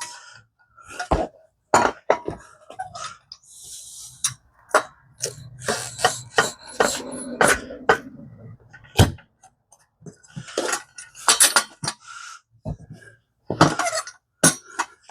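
Irregular metallic clanks and knocks from a manual tire changer as the bead of a mini bike tire is broken from the wheel rim.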